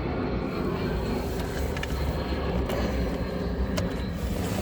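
Steady low rumble with a few sharp light clicks, the kind made by handling plastic parts.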